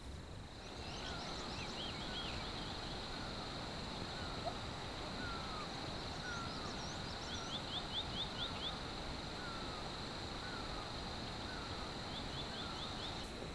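Forest ambience: a steady high insect drone, one bird repeating a short falling whistle about once a second, and other birds giving quick high chirps.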